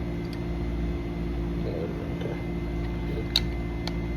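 Steady low machinery hum, with two sharp clicks near the end as the door-lock hardware is handled.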